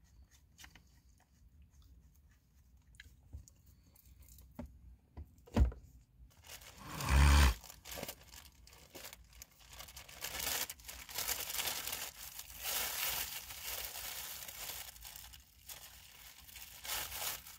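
Packaging being torn open and crinkled by hand, a rustle that runs on through the second half. Before it come a few light clicks, a sharp knock and then a dull thump about seven seconds in.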